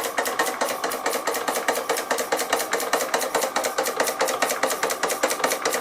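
Doll 347/3 toy steam engine running on compressed air, its exhaust beating fast and evenly at about ten beats a second over a steady tone.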